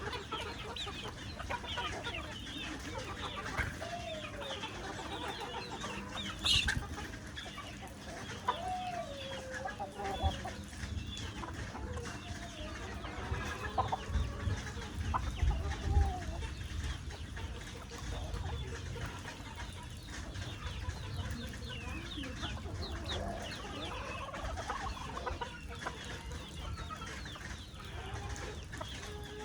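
Chickens clucking, with many short high cheeps and a few lower drawn-out calls over a steady background hiss. One sharp, loud call stands out about six and a half seconds in.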